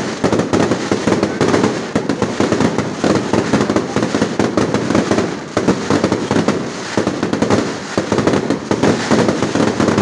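Fireworks display going off in a dense, continuous barrage of bangs and crackles.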